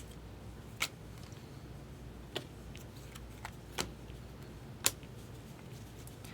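Baseball cards being handled and flipped through one at a time: sharp clicks and taps, four louder ones spread over the few seconds with fainter ticks between, over a low steady hum.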